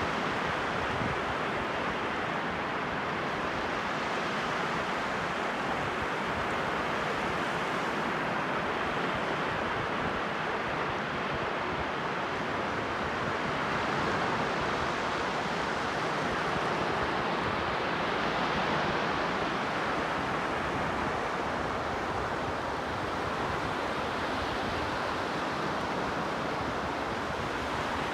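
Sea surf washing onto the shore: a steady rushing wash that swells slightly a couple of times, with some wind on the microphone.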